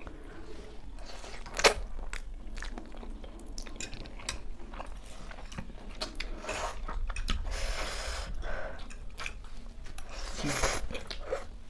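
People eating noodles: slurping and chewing, with small clicks of forks on plates and one sharp click just under two seconds in.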